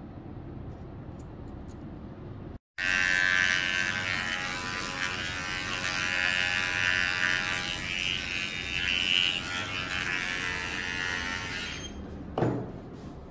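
Cordless pet hair clipper running steadily, a buzzing hum, as it trims the fur on a dog's ear. It starts abruptly about two and a half seconds in and stops near the end, followed by a short falling sound.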